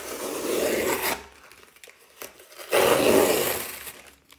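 A blade drawn along the packing tape of a cardboard parcel, slitting it open: two scraping strokes of about a second each, the second starting a little past halfway.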